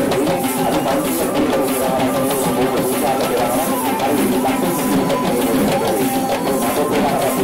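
Traditional Kandyan drums (geta bera) beating a steady, fast rhythm for the procession dancers, with a sustained, wavering melody line over them.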